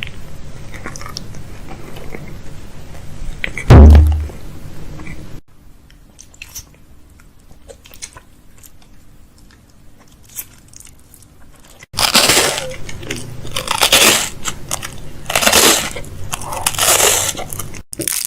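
Grocery items and their packaging being handled, crinkled and set down while a fridge is restocked, with one heavy thud about four seconds in. There is a quieter stretch in the middle and louder crinkling bursts near the end.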